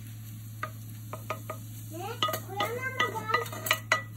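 Wooden spatula scraping and knocking against a non-stick frying pan as the meat is pushed out onto a glass plate: a few light clicks, then a run of short, squeaky scrapes.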